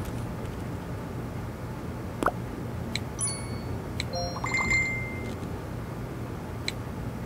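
Phone app sound effects: a few light tap clicks and short electronic chimes, clustered about three to five seconds in and ending in one longer chime, over a low steady hum.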